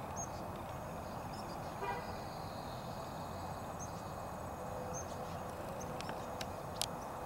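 Outdoor ambience with a steady distant traffic hum, a short horn-like toot about two seconds in, and faint high bird chirps scattered throughout.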